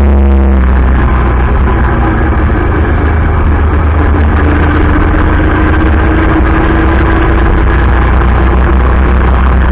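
Engine running steadily with a loud, low drone; a faint tone rises slowly in pitch through the middle.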